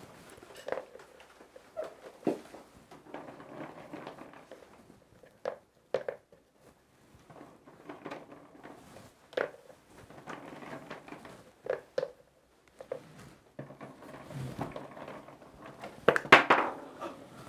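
Fireworks stars, small hard pellets, being picked up and set by hand into the paper half-shell of a shakudama aerial shell: scattered soft clicks and taps over a light rustle, with a louder flurry of clicks near the end.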